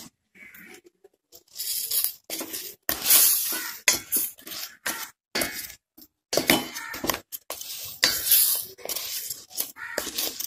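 Flat steel spatula scraping and knocking against a stainless steel pot as it stirs lumps of jaggery in a little water, melting them into syrup. The strokes are irregular, with the loudest scrapes about three and eight seconds in.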